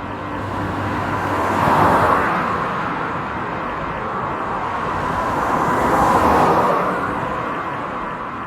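AI-generated sound effect: a steady rushing noise with a faint low hum. It starts abruptly, swells twice, about two seconds in and again about six seconds in, and eases off near the end.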